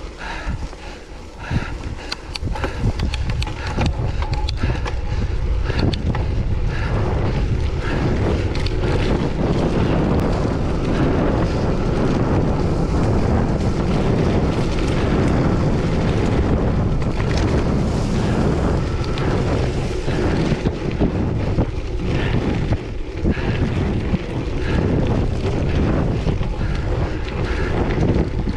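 Wind buffeting the camera microphone during a bicycle race, loud and steady from about three seconds in. A scatter of clicks and rattles comes in the first few seconds.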